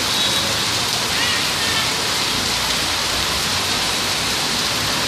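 Heavy rain pouring steadily onto a paved street, a dense even hiss that does not let up.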